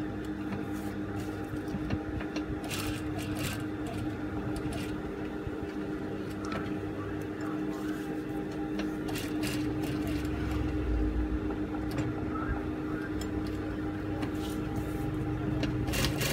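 JUKI industrial sewing machine stitching along the lines of a paper pattern sheet, over a steady motor hum, with irregular sharp clicks.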